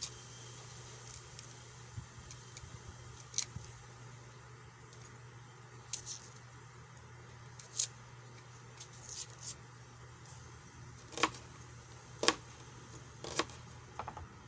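Kitchen knife peeling and slicing a red onion on a plastic cutting board: scattered short taps and scrapes, with the sharpest knocks, the blade hitting the board, three times near the end.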